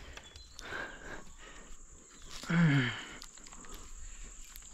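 Steady high-pitched drone of insects in the jungle. About two and a half seconds in, a man makes one short voiced sound that falls in pitch, and faint light clicks of rustling are scattered through.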